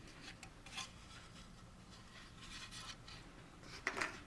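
Faint rustling and light clicks of plastic model kit parts being handled, with a short louder clatter near the end.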